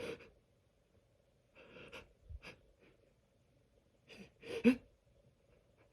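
A person's breathy inhales and catching gasps as a sneeze builds and is held back, with the loudest, a short voiced gasp, about four and a half seconds in.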